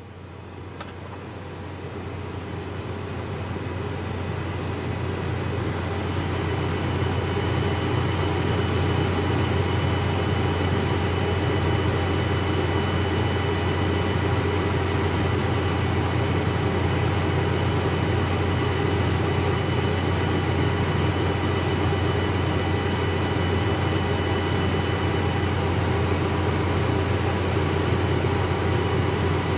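Large farm machinery engine running steadily: a deep drone with steady high whining tones above it. It fades in over the first several seconds, then holds even.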